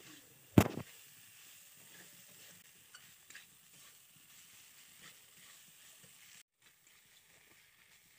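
Spatula stirring broccoli and potatoes in masala in a karahi, with faint sizzling and scraping, and one sharp knock of the spatula on the pan about half a second in.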